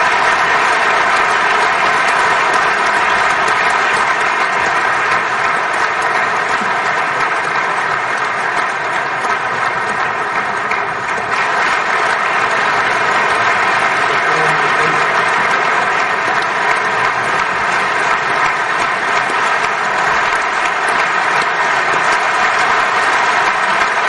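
Large audience applauding steadily without a break.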